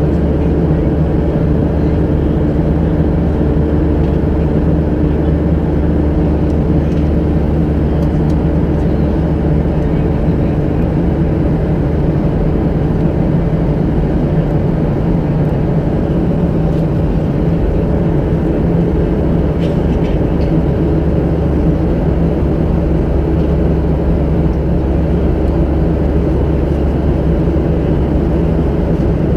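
Steady cabin drone of a Boeing 737-700 at cruise, heard inside the cabin beside the wing: the CFM56-7B turbofan and the rush of airflow, with a few steady low hum tones and no change in level.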